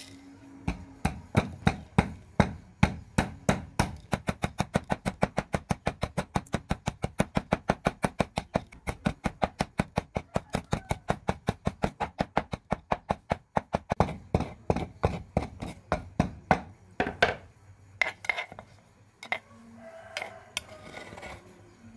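Black peppercorns pounded with a wooden pestle in a mortar: a long run of sharp, even knocks, about three to four a second, that slows and stops a few seconds before the end. Then a few scrapes and clinks as a metal spoon scoops the cracked pepper out of the mortar.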